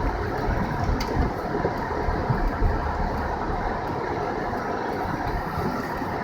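Car driving on a snowy road: a steady low rumble of tyres and engine, with a faint tick about a second in.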